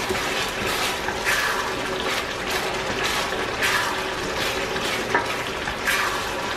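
A pan of sauce with leeks sizzling and bubbling as it cooks: a steady hiss with irregular crackles.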